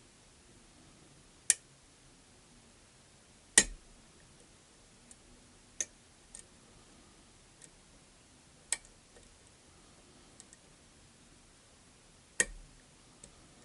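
Sharp metallic clicks of a lock pick working the pins inside a pin-tumbler challenge lock held under tension: five loud clicks at uneven intervals with several fainter ticks between them.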